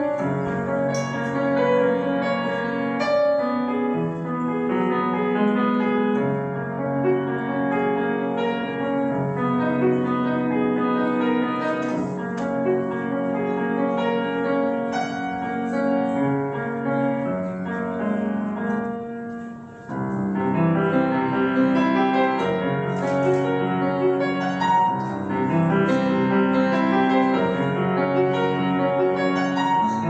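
Grand piano played solo, a continuous run of notes with a brief break a little under two-thirds through, after which the playing comes back slightly louder.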